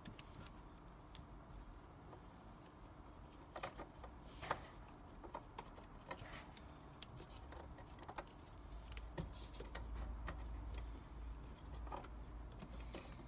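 Faint small clicks and rustles of hands handling thin wires at a plastic plug connector, with a low rumble that comes in about two-thirds of the way through.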